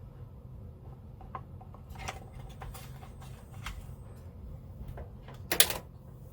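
Light clicks and taps of small parts and wires being handled on a workbench while an LED circuit is hooked to a battery for a light test, with one louder brief scrape about five and a half seconds in, over a low steady hum.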